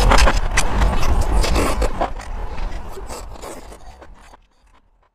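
Close-miked eating sounds: wet chewing clicks and a metal fork scraping through a tray of chili-coated food. The sound fades out over the last couple of seconds.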